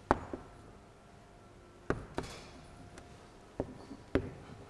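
Chalk writing on a blackboard: a handful of sharp, separate taps of the chalk striking the board, with faint scraping between them.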